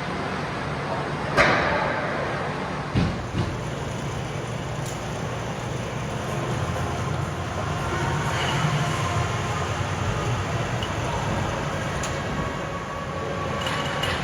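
Steady hockey-arena noise, an even rumble and hiss, broken by two sharp knocks about a second and a half and three seconds in.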